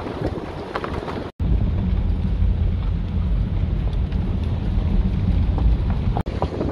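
Car tyres crunching over a loose gravel mountain track with scattered stone clicks. About a second in, an abrupt cut gives way to a loud low rumble of wind buffeting the microphone over the car's road noise. That rumble breaks off in a brief dropout near the end.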